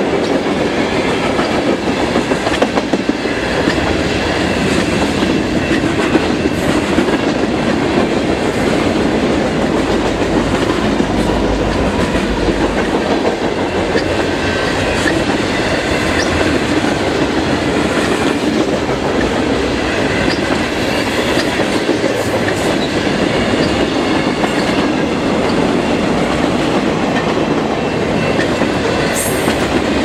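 Freight train of tank cars and boxcars rolling past close by, a steady loud rumble with wheels clattering over the rail joints.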